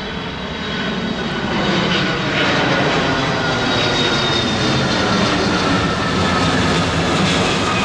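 Jet airliner passing low overhead: a loud steady rush with high whining tones that slowly fall in pitch, building up over the first couple of seconds.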